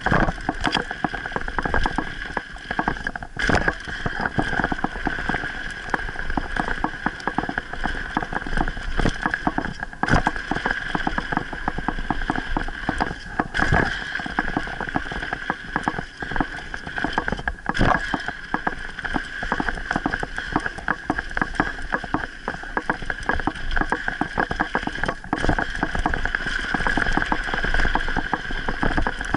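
Mountain bike rolling fast down a rough dirt trail: continuous rattling and clattering of the bike over the bumpy ground, with tyre noise on dirt and a steady high whine underneath.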